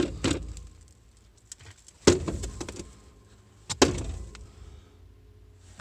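A gloved hand sweeping snow and ice off a skid-steer's vinyl seat: a few sharp swipes, each dying away quickly, the two loudest about two and nearly four seconds in.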